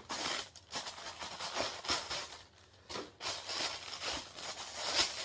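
Tissue paper packing rustling and crinkling as hands pull it apart inside a shoebox, in uneven bursts with a couple of short pauses.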